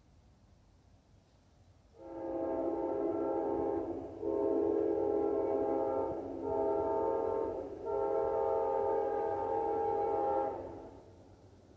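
Amtrak passenger train's multi-chime locomotive horn sounding four blasts: long, long, short, long. This is the standard grade-crossing signal for an approaching train.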